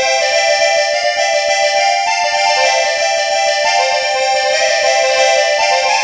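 Background electronic music: sustained chords under a slow, stepping melody, with no drums.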